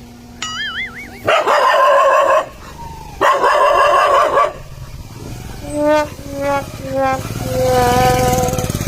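An angry dog snarling in two long, loud, harsh bursts, then giving three short pitched yelps and a longer wavering howl-like whine. A brief warbling tone comes just before the first snarl.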